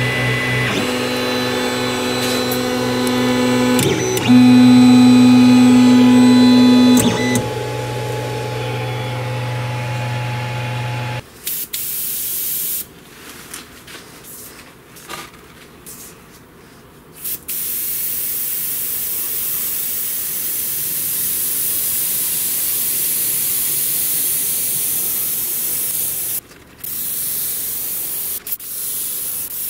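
A 3D printer's stepper motors whine in steady tones that shift pitch a couple of times as the nozzle lays down filament, for roughly the first eleven seconds. Then an airbrush sprays paint, a hiss in short bursts that later holds steady, with a brief break near the end.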